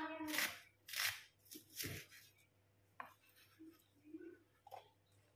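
Chef's knife cutting through onion and striking a wooden cutting board while dicing: three sharp cuts in the first two seconds, then a few faint taps.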